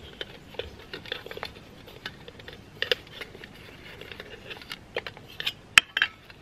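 Handling of a titanium camping cook kit: a mesh stuff sack rustling and many small clicks and clinks of the metal pieces. The loudest, sharpest click comes near the end, as a metal lid is set down on a wooden table.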